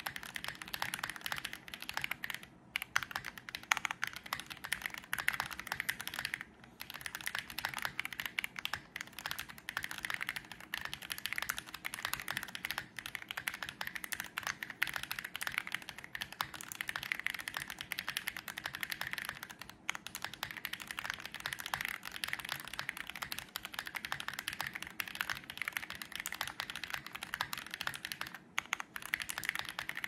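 Fast, continuous typing on a KBDFans Tiger80 mechanical keyboard with lubed Ashkeebs Auralite switches, a polycarbonate plate, no case foam, a tempest tape mod and PBT keycaps. It gives a dense stream of fairly high-pitched key clacks, broken by a few brief pauses.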